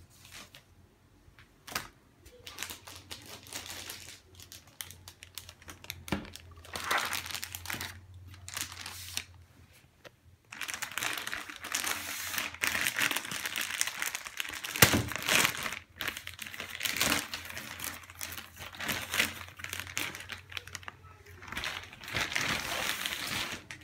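Plastic packaging crinkling as it is handled and unwrapped, in irregular bursts that become nearly continuous after about ten seconds, with one sharp knock partway through.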